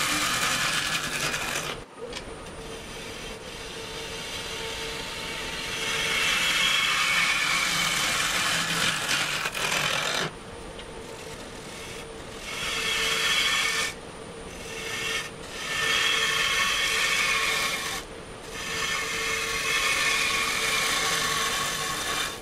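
Bowl gouge cutting a spinning green butternut bowl blank on a wood lathe: several passes of loud, even shearing noise, each one to six seconds long, with short breaks between them where the lathe's steady motor hum is left.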